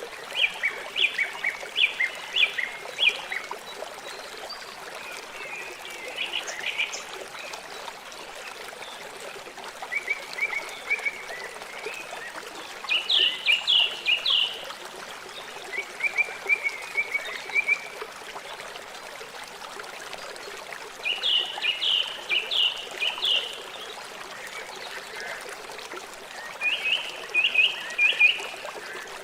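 River water flowing steadily, with a bird calling over it in short runs of quick repeated notes, seven runs spaced a few seconds apart.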